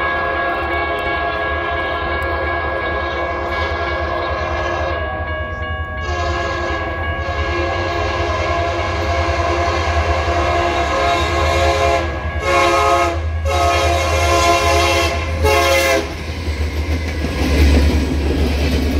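Union Pacific SD70M's Nathan K3HA five-chime air horn sounding a horn salute at a grade crossing as the locomotive approaches: long blasts broken by short gaps, ending about three seconds before the end. The locomotive then passes close by, its engine and wheels making a low rumble.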